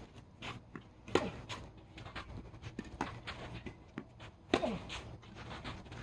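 Tennis rally: sharp knocks of racket strikes and ball bounces, with scattered footsteps on the court. Two louder knocks, about a second in and near four and a half seconds, each trail off in a short falling whine.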